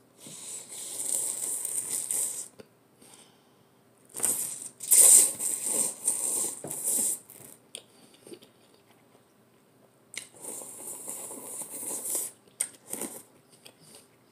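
A person slurping hot instant cup noodles, three long hissing slurps with short pauses between.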